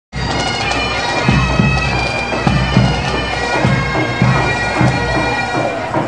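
Reed-pipe music over a steady held drone, with a deep drum beating along underneath.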